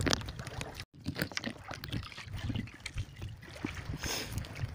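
Scattered light clicks and wet rustling of Indian mackerel being picked out of a nylon fishing net and dropped onto the pile of fish in a wooden boat. The sound cuts out briefly about a second in.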